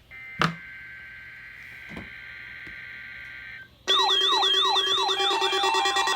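A faint steady tone, then about four seconds in a loud electronic emergency alert alarm starts abruptly: a siren-like tone sweeping downward about four times a second over several steady tones.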